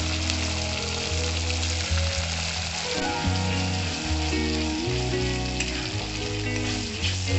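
Ground spice and tomato paste sizzling and frying in hot mustard oil in a non-stick kadai while a spatula stirs it, over background music.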